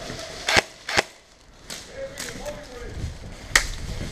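Airsoft guns firing single shots: three sharp snaps, two close together about half a second and a second in, and a third about three and a half seconds in, with faint shouting between them.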